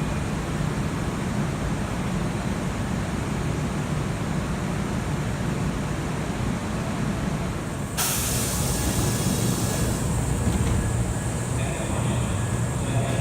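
Kintetsu electric train standing at the platform with a steady low rumble, then about eight seconds in a sudden loud hiss of compressed air from the train that carries on.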